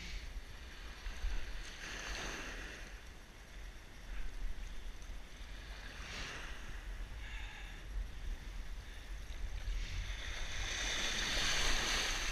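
Ocean surf washing onto a beach, swelling and fading about three times with the loudest wash near the end, over steady wind rumble on the microphone.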